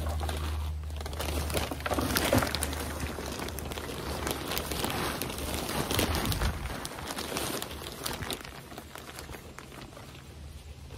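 Plastic potting-mix bag crinkling as soil pours out of it into a plastic planter tier, with the rustle and patter of falling soil and gloved hands spreading it. A low steady hum underneath stops about two-thirds of the way through.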